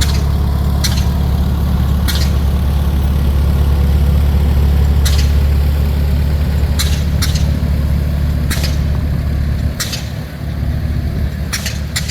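1951 Minneapolis-Moline GTB tractor engine running steadily as it drives past, a loud deep rumble that eases briefly about ten seconds in. A few short sharp clicks sound over it.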